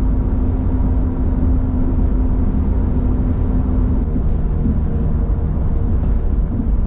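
A car driving, heard from inside the cabin: a steady low rumble of engine and road noise, with the engine note dropping to a lower pitch about four seconds in.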